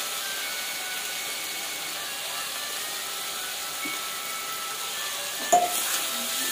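Cauliflower and potato sabzi sizzling in a steel kadai on a gas stove, a steady hiss, with a metal spatula clanking sharply against the pan once about five and a half seconds in.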